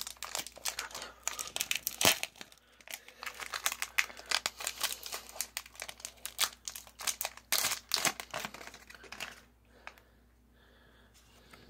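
Foil wrapper of a Pokémon booster pack crinkling and tearing as it is pulled open by hand, a rapid run of irregular crackles with the sharpest one about two seconds in. The crackling stops a couple of seconds before the end.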